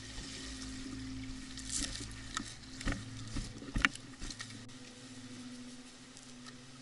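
Irregular sharp clicks and rustling, about half a dozen between roughly two and four seconds in, over a faint steady low hum.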